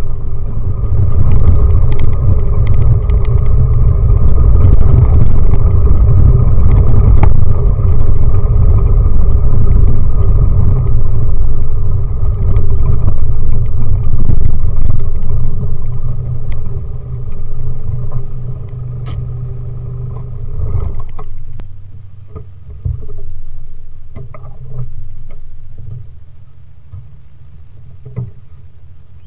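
An off-road 4x4's engine running loud and steady, close up. About twenty seconds in it falls away suddenly, leaving a quieter rumble with a few scattered knocks.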